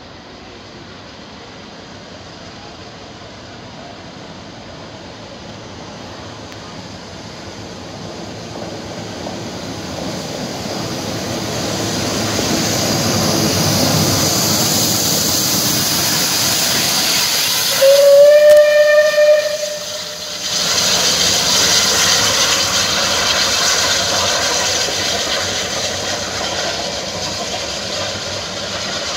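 Rebuilt Bulleid Battle of Britain class steam locomotive 34052 passing close by, its exhaust and running noise growing louder as it approaches. About 18 seconds in it gives one steam whistle blast of about two seconds, the loudest sound, falling slightly in pitch at the end. Steam hiss and running noise follow and slowly fade.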